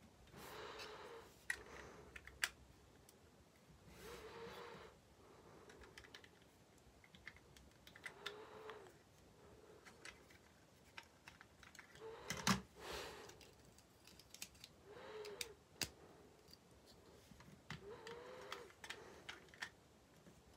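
Plastic building-brick parts of a toy car clicking and tapping under the fingers, scattered small clicks with a sharper one about twelve seconds in, as a minifigure is seated and the roof pieces are pressed back on. Soft breaths come every three to four seconds.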